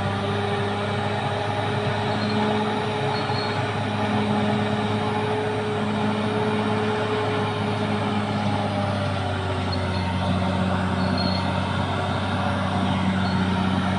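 Caterpillar D6R XL bulldozer's diesel engine running steadily, its pitch rising and falling slightly as the machine works.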